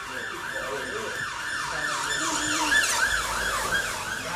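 Emergency-vehicle siren in a fast yelp, about three rising-and-falling sweeps a second, getting louder to a peak about three seconds in and then easing off as it passes.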